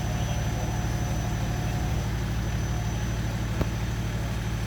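Fire engine's diesel engine idling with a steady low rumble, and a single sharp click about three and a half seconds in.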